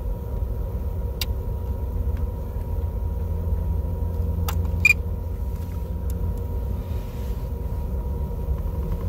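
Steady low rumble of a car idling, heard from inside the parked car's cabin, with a few light clicks.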